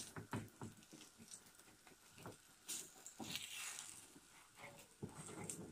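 Faint scattered clicks and scrapes of a slotted spatula against a frying pan as it works under the edge of a frying gram-flour roti, with a brief soft rush about three seconds in.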